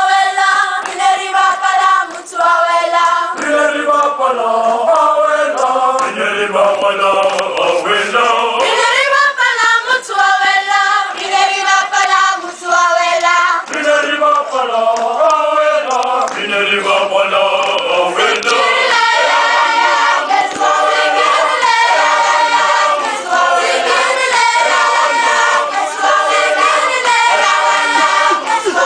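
A children's choir of about thirty voices singing together, unaccompanied.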